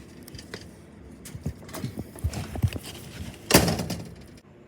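A run of light knocks and clatter, then a louder thud with a brief rustle about three and a half seconds in, before the sound cuts off abruptly.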